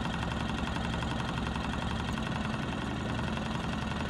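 Small outboard motor idling with a steady, even hum.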